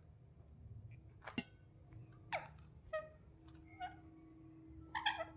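Indian ringneck parakeet giving a few short chirps and whistles, some of them sweeping downward in pitch, with the loudest call near the end. A faint steady hum runs under the second half.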